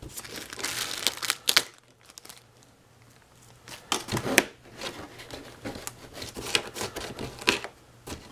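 Clear plastic zip-lock bag crinkling as it is handled and lifted away, in two spells of irregular crackling with a short pause between.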